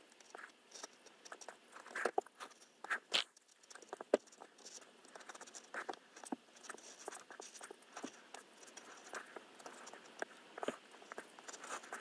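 Craft knife blade cutting through a paper stencil on a cutting mat: a run of small, irregular scratchy ticks, with a few louder clicks about two to three seconds in.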